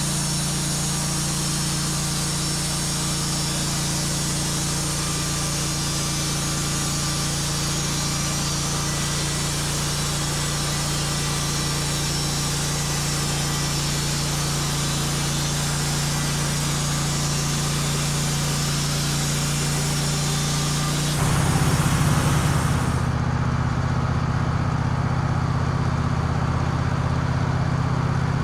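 Wood-Mizer portable bandsaw sawmill cutting through a wood cant: the mill's engine running steadily under the hiss of the band blade in the wood. About 21 seconds in the sound shifts and gets louder, and a couple of seconds later the cutting hiss stops while the engine keeps running.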